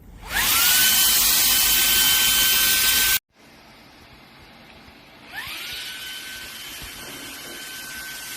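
Shark WandVac cordless handheld vacuum switched on: its motor whines up to a steady high pitch over a loud rush of air, then stops abruptly about three seconds in. A couple of seconds later it starts up again, quieter, climbs to the same steady whine and keeps running.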